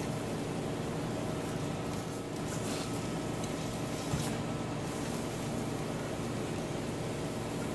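A noisy truck's engine running steadily, an even low drone with several hum tones; a short click about four seconds in.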